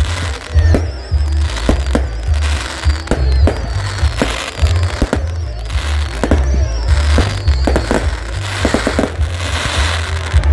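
Aerial fireworks display: a rapid series of shell bursts going off as loud bangs, with crackling and, twice, high wavering whistles.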